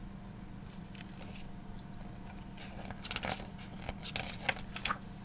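Paper pages of a hardcover picture book rustling, with short irregular clicks and flaps as the book is handled and its pages turned, busiest in the second half; a steady low hum runs underneath.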